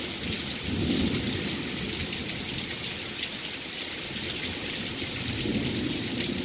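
Heavy rain pouring steadily in a thunderstorm, a dense even hiss, with low rumbles swelling about a second in and again near the end.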